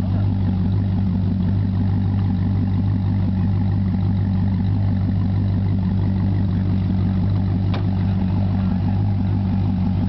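Modified Chevrolet Corvette Z06's 7.0-litre LS7 V8 idling steadily through its quad exhaust, a deep, even note with no revving.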